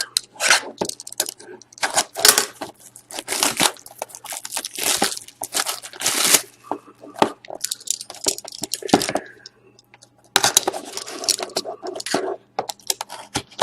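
Packaging of a sealed Upper Deck Ultimate Collection hockey card box being torn and crinkled open by hand: a quick run of tearing and rustling strokes, with a brief pause about ten seconds in.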